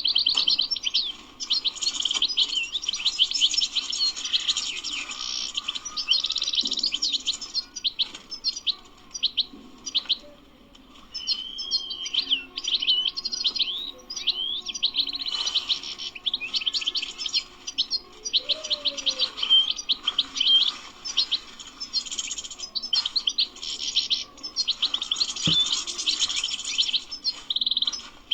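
European goldfinch singing a long, fast twittering song, with a short break about ten seconds in.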